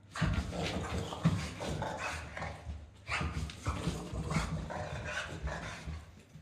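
Boston terrier making excited vocal sounds while spinning in circles, in two stretches of about three seconds each with a short break near the middle.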